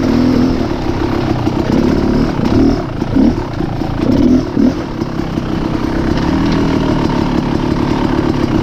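Dirt bike engine running while riding a rough trail, its pitch rising and falling in short throttle blips around the middle, then running steadier near the end.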